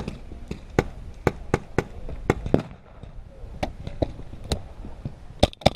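Paintball markers firing single shots at an uneven pace, about fifteen sharp pops, with a quick run of three near the end.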